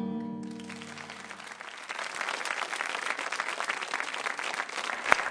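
An acoustic guitar's last chord rings and fades as applause breaks out about half a second in and grows steadily louder. Near the end there is one sharp, loud smack, louder than the rest of the clapping.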